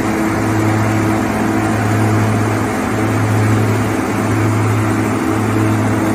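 OXBO self-propelled green bean harvester running steadily while harvesting: a low, even engine hum with a broad mechanical rush over it.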